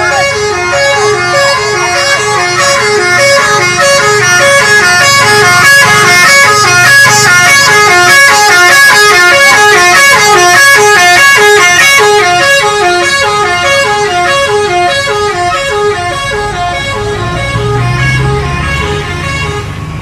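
Indonesian bus 'telolet' musical horn, a set of tuned air horns, playing a fast repeating tune of alternating notes over the low rumble of the bus engine. The horn stops just before the end as the engine rumble swells.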